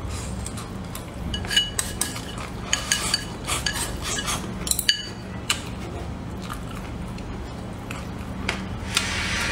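Chopsticks clicking and scraping against a ceramic bowl, a quick run of clinks, some ringing briefly, mostly in the first five seconds, while the last of the food is eaten from the bowl.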